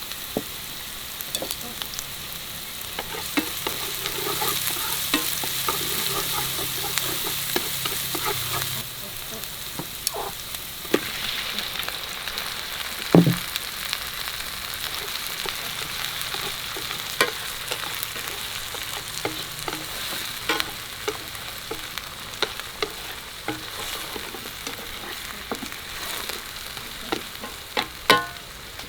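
Food sizzling as it fries in a hot pan, a steady hiss that is louder for the first several seconds, with many sharp clicks and taps of a utensil against the pan as it is stirred.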